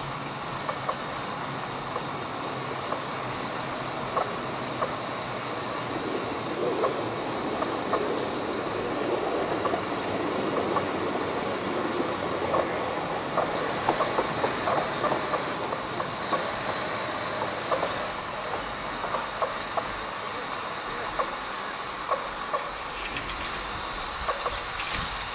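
A 15-inch gauge miniature steam locomotive running slowly into a station with a steady hiss of steam, over a scatter of light clicks from the wheels on the track, thickest in the middle.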